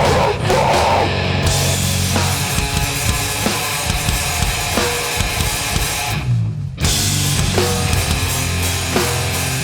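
Live heavy hardcore band playing loud: pounding drum kit with bass drum and cymbals under distorted guitars and bass. About six seconds in, the band stops for half a second with only a low bass note ringing, then comes crashing back in.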